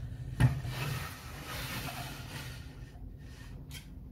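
Handling noise from the opened metal chassis of a Kunkin KP184 electronic load as it is turned around by hand: a sharp knock about half a second in, then about two seconds of rubbing, rustling noise.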